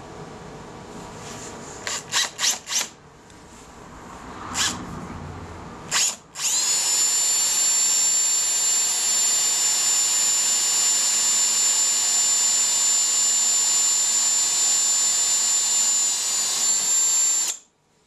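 Hand-held electric drill with a 10 mm Forstner bit boring through a turned eucalyptus birdhouse body. It starts with a few short blips of the motor around two seconds in, then runs as a steady high whine for about eleven seconds and cuts off suddenly near the end.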